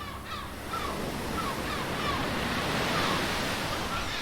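Ocean surf breaking, swelling to a louder wave about three seconds in, with a bird giving short repeated calls about twice a second over it.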